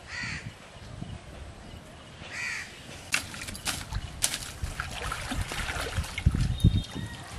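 A crow cawing twice, about two seconds apart, followed by a run of sharp clicks and low thumps that are loudest near the end.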